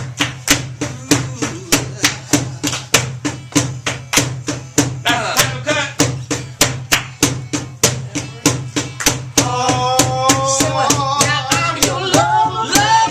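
Live R&B band playing a soul groove: percussive hits about four a second over a steady bass line. A melodic line comes in about nine seconds in.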